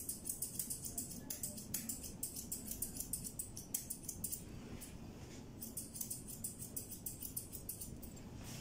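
Grooming scissors snipping through a long-haired cat's fur in quick runs of cuts, several snips a second, with a pause of about a second halfway through.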